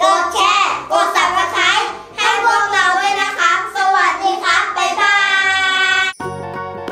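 Several children chanting a sing-song sign-off together, ending on one long held note. About six seconds in the voices cut off and a music jingle starts.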